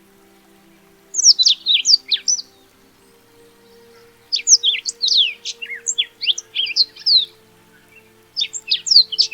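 Black-throated canary singing: three bouts of quick, high twittering made of short, mostly downward-slurred notes. The middle bout is the longest, about three seconds.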